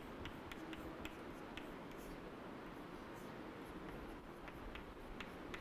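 Chalk tapping and scratching on a chalkboard as an equation is written: faint, irregular taps over a low hiss.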